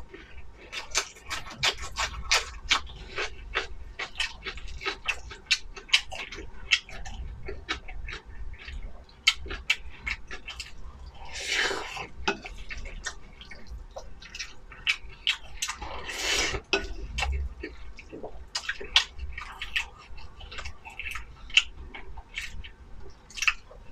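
Close-miked eating sounds of braised pork rice being chewed: a rapid, wet run of mouth clicks and smacks, with two longer rushing sounds about 12 and 16 seconds in.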